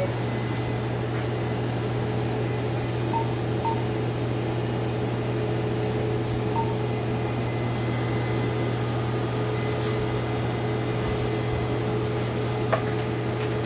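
Cutera Xeo laser system's cooling fans and pump running with a steady hum, the unit switched on and regulating its cooling temperature. A few faint short beeps from touchscreen presses, and a single click near the end.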